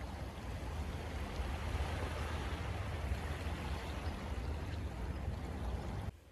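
Sea water rushing and washing at the shoreline, a steady noise with a low rumble that cuts off abruptly near the end.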